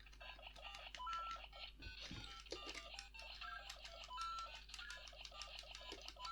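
Lego Super Mario Luigi interactive figure's small built-in speaker playing its quick, beeping electronic course music.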